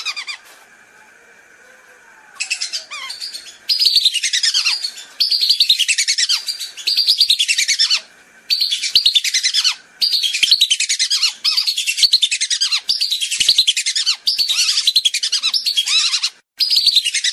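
Whistling-duck lure call: a recording of whistling ducks giving loud, clear twittering whistles. It comes in repeated bursts of rapid falling notes, each about a second long with short gaps between, starting about two seconds in.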